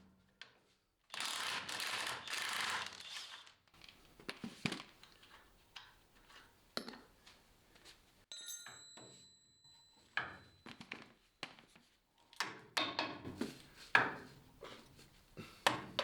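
A hand ratchet working for a couple of seconds, then scattered clinks and knocks of steel tools and parts being handled, with a flurry of louder metal knocks near the end.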